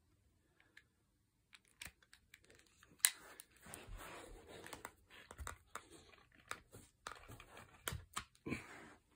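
Handling noise from a Webley Tempest air pistol being turned over in the hands: scattered clicks and knocks of the pistol's parts over a rubbing rustle of hands on the gun. It is almost silent for the first second and a half; the sharpest click comes about three seconds in.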